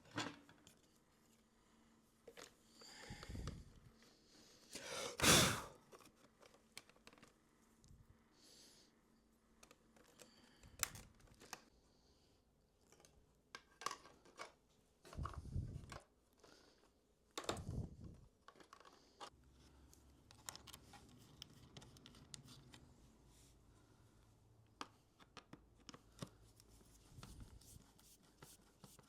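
Intermittent handling noises in a small room: scattered sharp clicks, brief rustling and scraping, and a few dull knocks, with the loudest rustle about five seconds in.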